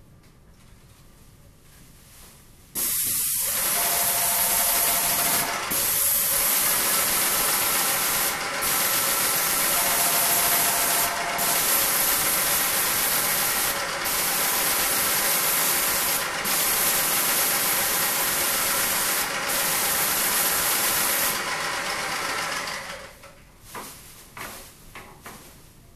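Paint sprayer spraying the ceiling through an extension-pole gun: a loud, steady hiss that starts suddenly about three seconds in, with short breaks every two to three seconds, and stops a little over twenty seconds in.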